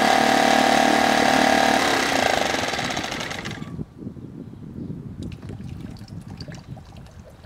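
HDX F 2.6 single-cylinder four-stroke outboard motor running steadily with its leg in a water barrel, then switched off about two seconds in, slowing and dying out by about four seconds. Afterwards faint water sloshing and a few light clicks.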